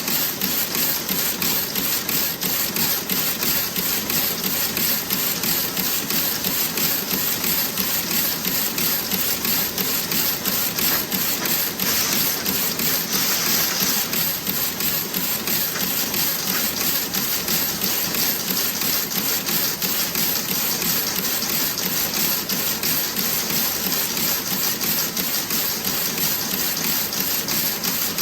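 Toe-sock knitting machine running: a steady, fast clatter of rapid, even ticks. A brief hiss comes in about twelve seconds in.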